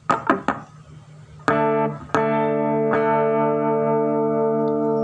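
Electric guitar played through a board of Boss effect pedals: three quick scratchy strums, then a chord struck about a second and a half in, cut short, struck again and left ringing.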